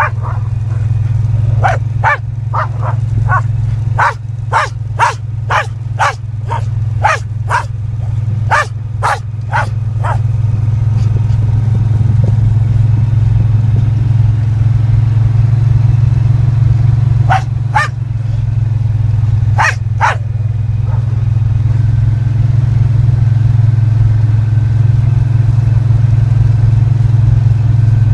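A side-by-side UTV's engine running steadily, louder from about twelve seconds in. Over it a herding dog barks about twice a second through the first ten seconds, then a few more times around seventeen to twenty seconds in.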